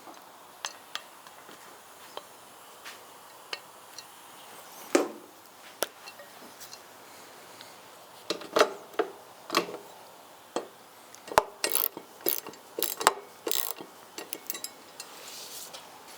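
Hand tools and small metal hardware clicking, knocking and rattling as the licence plate frame's bolts are fitted and worked in. The sounds are scattered at first, then come thicker and louder from about halfway.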